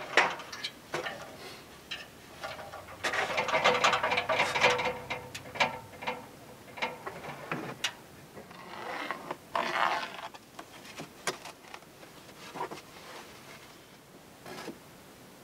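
Scattered knocks and clicks of a person moving about an aluminium ladder and scaffold plank, with clatter and rustling as cedar shingles and tools are handled. The rustling is densest about three seconds in and again around ten seconds.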